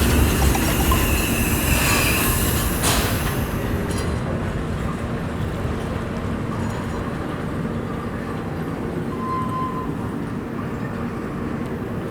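A train passing close by and moving away, wheels rumbling and clattering on the rails, with a brief high wheel squeal early on and a sharp click about three seconds in. The noise then fades steadily as the train recedes.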